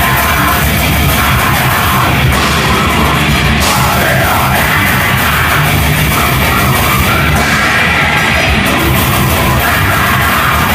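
Loud, dense heavy rock music playing without a break.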